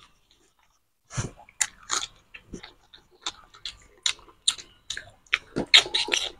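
Two people eating mutton curry and rice by hand: chewing with many short mouth clicks and lip smacks, starting about a second in and coming thicker near the end.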